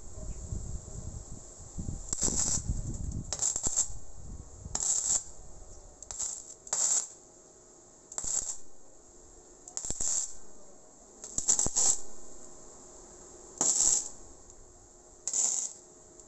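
Gasless (flux-core) MIG welder laying short weld bursts on steel tubing: about ten separate bursts, each under a second, at irregular intervals.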